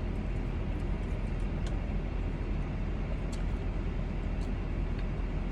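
Steady low rumble and hiss inside a car cabin with the engine running, with a few faint ticks.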